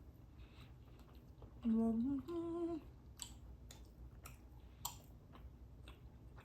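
A woman humming a pleased two-note "mm-mmm" with her mouth full of sushi, followed by a few short, wet mouth clicks and smacks from chewing.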